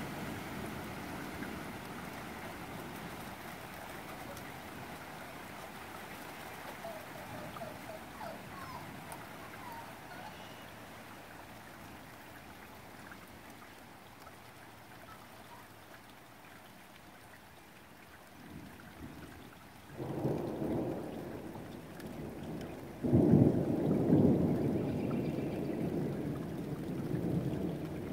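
Steady rain during a thunderstorm, the rain's hiss easing slightly over the first two-thirds. Then thunder breaks in twice, a clap about two-thirds through and a louder one a few seconds later, each rumbling on for several seconds.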